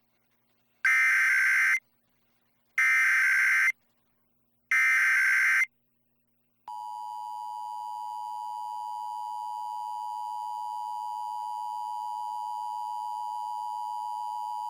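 Emergency Alert System SAME header: three raspy digital data bursts, each about a second long and a second apart. A second or so later the steady two-tone EAS attention signal (853 and 960 Hz together) begins. Together they open a Required Monthly Test of the Ohio Emergency Alert System.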